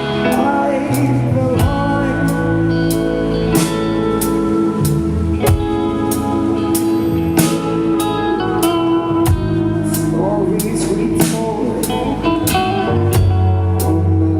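Band playing an instrumental break of the song: guitar lead with bending notes over bass and a steady drum beat.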